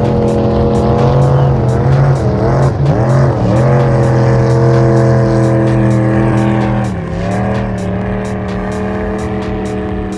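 Jet boat engine running hard with a steady, pitched drone. Its pitch dips and wavers about three seconds in and falls a step about seven seconds in, when the sound gets a little quieter. A music track with a regular beat plays underneath.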